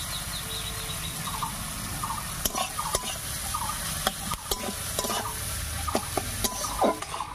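Chopped tomato and onion sizzling steadily in hot oil in a metal kadai while a metal spatula stirs them. From about two and a half seconds in, the spatula clacks and scrapes against the pan repeatedly.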